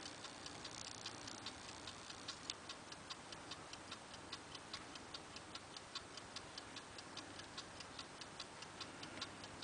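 Faint, steady ticking of a clock, about four even ticks a second.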